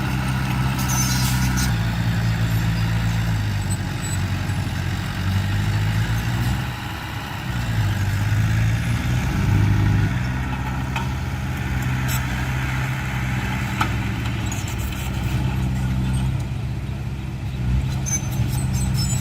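Heavy diesel engine of earthmoving machinery running, its pitch stepping up and down as the revs change, with a few light knocks.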